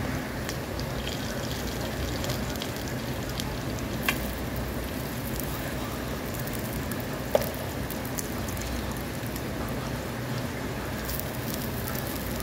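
Steady rushing water noise with a low rumble underneath, broken by two sharp taps about four and seven seconds in.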